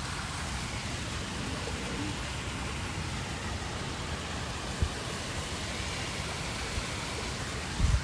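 Steady rushing hiss of outdoor background noise, with a soft low thump near the middle and another near the end.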